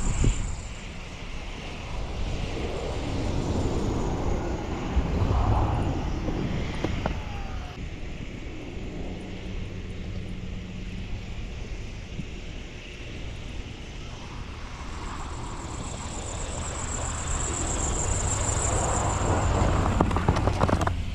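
Motor vehicle engine running with a steady low rumble that swells and eases a couple of times.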